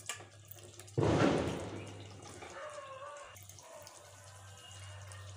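A little water poured into a pot of simmering chicken karahi gravy: a sudden splash and sizzle about a second in that fades away over a second or two, over a low steady hum.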